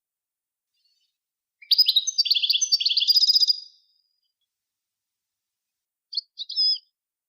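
A songbird singing: one rapid twittering phrase of about two seconds, then a short burst of a few notes near the end. It is a recorded song of the kind played to tutor cage birds.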